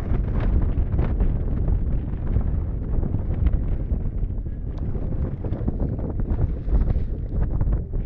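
Strong wind buffeting the microphone: a continuous low rumble with irregular gusts.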